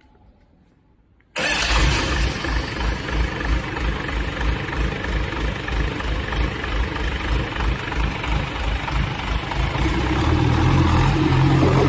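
Diesel engine of a concrete pump catching and starting about a second and a half in, then running with an even, rapid low beat. It picks up speed and gets louder near the end.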